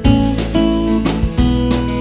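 Background music led by strummed acoustic guitar with a steady rhythm.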